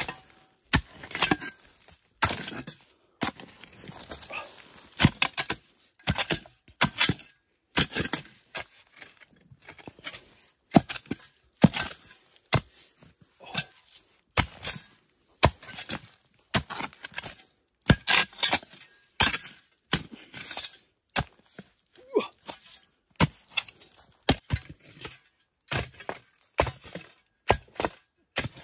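A metal spade striking and chopping into hard earth in repeated blows, roughly one to two a second, with loose soil scattering after each strike. The spade is digging out a bamboo rat's burrow.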